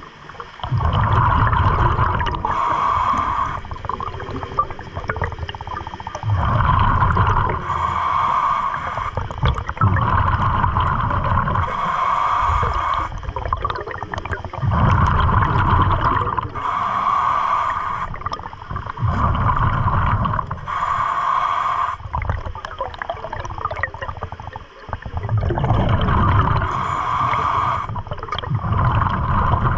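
A scuba diver breathing underwater through a regulator: exhaled air bursts out as rushing, gurgling bubbles every four to five seconds, with quieter stretches between breaths.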